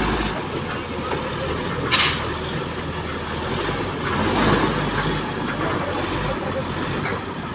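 Heavy construction equipment and truck engines running, with a short, sharp hiss about two seconds in.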